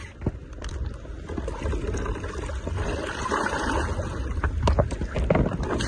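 Seawater splashing as a breakfast pouch is dipped and rinsed by hand in the ocean alongside a rowing boat, with a few sharp knocks near the end.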